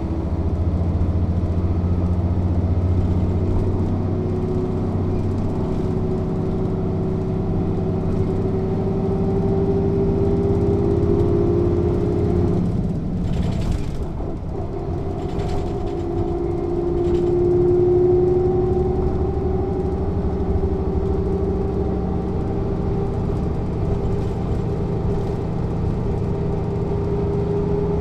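Mercedes-Benz O 407 city bus's six-cylinder diesel engine running under way, its pitch rising steadily as the bus pulls. About halfway through the engine note drops away briefly with a few short clicks and hisses, then it pulls and rises again.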